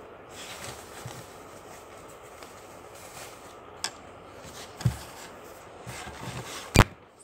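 Handling noise from a small plastic electronic whistle and its packaging: soft rubbing with a couple of light clicks, then one sharp click near the end. No whistle tone sounds.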